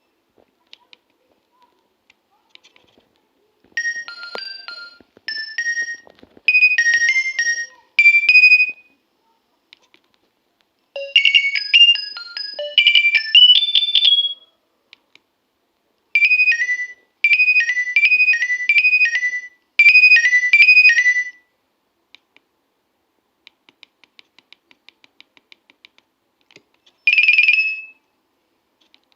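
Nokia 2300 mobile phone playing its built-in ringtones through its small speaker: several short, high, beeping melodies one after another with pauses between them. Near the end come a run of faint rapid ticks and one brief tone.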